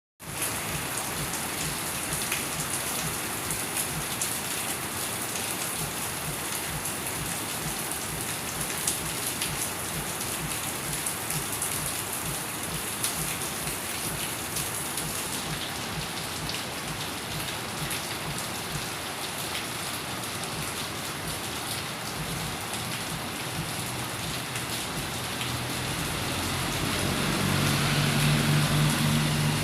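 Steady rain falling on a surface, a continuous hiss dotted with individual drop ticks. Near the end it grows louder and a low rumble comes in underneath.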